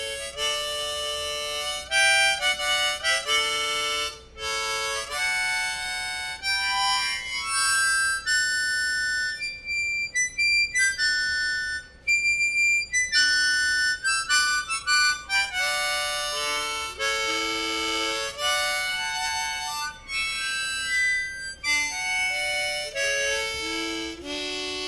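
East Top 10-hole diatonic harmonica in the key of D being played: a string of quick single notes and chords in short phrases, with brief breaks between them.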